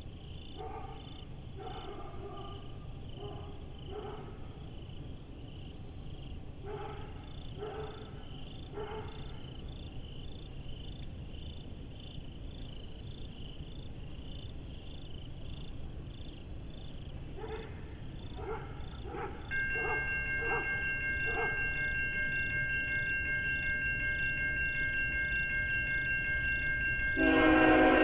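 Railroad grade-crossing warning bell starts ringing about two-thirds of the way in, then a diesel locomotive's multi-chime air horn sounds loudly near the end as the CSX intermodal approaches. Short animal calls are heard several times early on over a steady low rumble.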